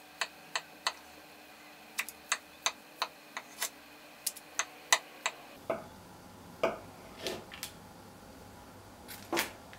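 Knife cutting through a brownie's crisp, crackly top crust: a run of sharp crackling clicks, with a few softer ones near the end.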